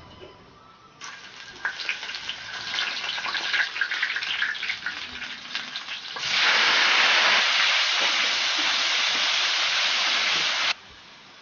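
Hot oil crackling and spitting in a large iron wok, then a sudden loud, steady sizzle about six seconds in as sliced tomatoes are tipped into the hot oil for stir-frying. The sizzle cuts off abruptly shortly before the end.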